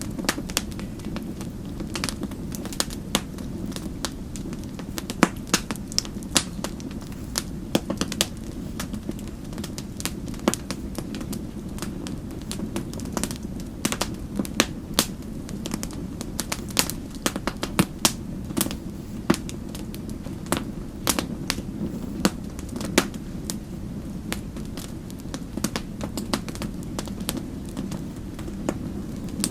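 Wood fire in a fireplace crackling: a steady low rumble of burning with irregular sharp pops and snaps, several a second.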